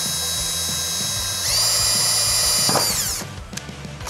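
Cordless drill running as it bores a pilot hole through a car's firewall. Its whine steps up to a higher speed about a second and a half in, then winds down and stops about three seconds in.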